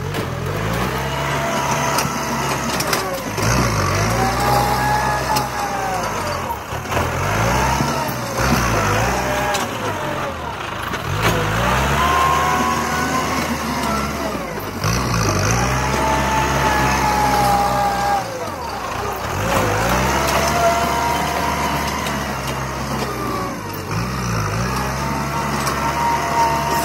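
Kubota M8540 tractor's diesel engine working as its front blade pushes and levels soil, the revs rising and falling back repeatedly, roughly every four seconds.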